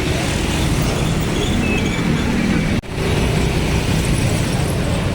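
Steady roadside traffic noise from passing motor vehicles, with the sound cutting out for an instant a little under three seconds in.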